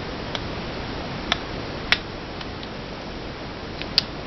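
A few sharp, separate clicks of a small magnet touching and pulling away from the metal reversing lever of a Craftsman 3/8-inch ratchet. The magnet sticks only weakly.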